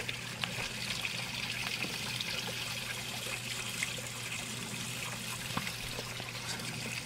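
Water trickling and splashing steadily from a stacked-stone urn garden fountain into its pond.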